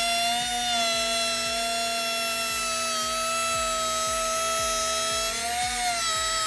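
Handheld wood router spinning a Roman ogee bit as it cuts a decorative profile into the edge of a solid-wood dresser top: a steady high motor whine, its pitch wavering briefly near the end.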